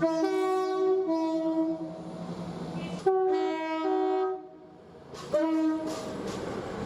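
British train two-tone horns sounded three times in quick succession, each a short blast that steps between a high note and a low note. They sound like separate recordings cut back to back.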